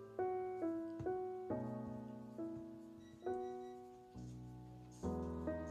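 Background piano music: a slow melody of single struck notes, each ringing and fading before the next, with a lower bass note coming in near the end.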